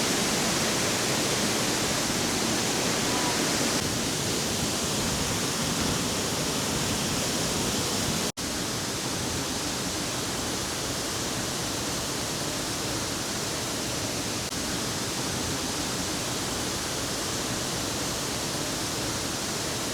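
Steady rushing of a waterfall close by, an even wash of water noise, with a momentary break about eight seconds in.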